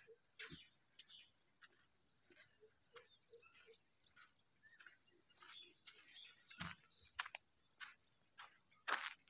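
Insects droning steadily at a high pitch in the open countryside, with a few faint short ticks and rustles.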